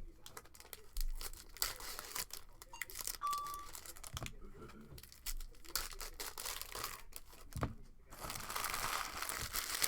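Trading card pack wrappers being torn open and crinkled, with cards and wrappers handled in irregular rustles and clicks; a longer stretch of crinkling near the end.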